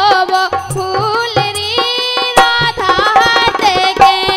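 Live Bundelkhandi folk devotional song: a woman singing a bending, ornamented melody, accompanied by harmonium and steady hand-drum strokes, with a dholak keeping the rhythm.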